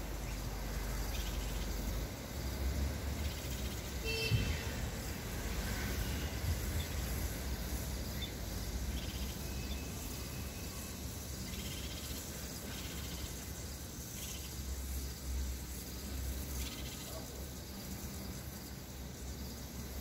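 Steady low outdoor rumble with a few faint calls from a caged common bulbul, a short run of high notes about four seconds in.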